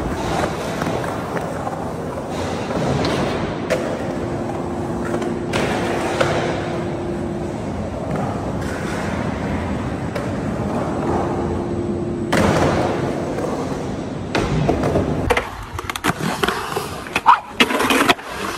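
Skateboard wheels rolling on the concrete of a bowl, a steady gritty rumble. Sharp clacks of the board come every few seconds, then a quick run of clacks and knocks near the end.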